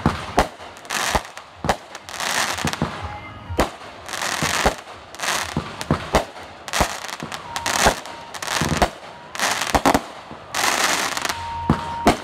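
Aerial fireworks going off in quick succession: repeated sharp bangs, about one or two a second, with stretches of hissing between them.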